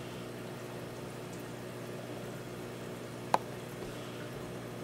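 Freshwater aquarium's pump and water circulation running: a steady low hum with faint bubbling. A single sharp click about three seconds in.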